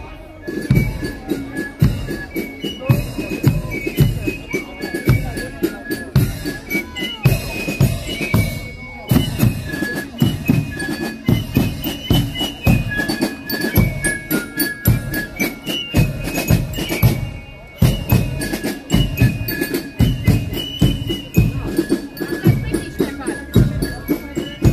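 Marching band playing a march: drums beating a steady rhythm under a high melody line, with two short breaks in the beat.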